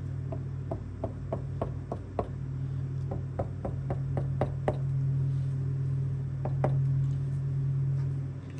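Light taps of a CA glue bottle's tip dabbed onto wood, about three a second in short runs with pauses, over a steady low hum.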